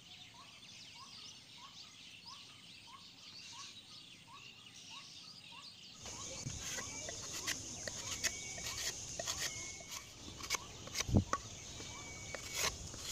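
A bird repeats a short rising call about twice a second over a faint hiss of outdoor background. About six seconds in, the sound changes to a knife scraping and shaving bark off a green stick: a run of sharp scrapes and cuts, the loudest near the end.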